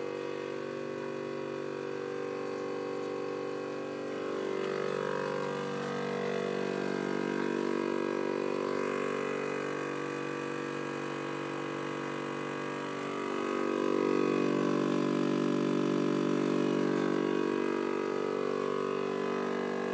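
All In One wine vacuum pump running with a steady electric motor hum, drawing Riesling through a 1-micron whole house filter cartridge. The hum grows a little louder about four seconds in and again about thirteen seconds in.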